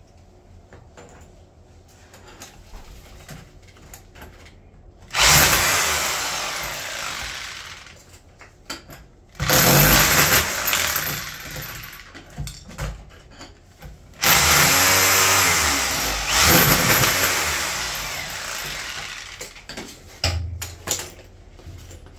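A handheld power tool runs in three bursts of a few seconds each. Each burst starts suddenly and fades off, with lighter knocks between them.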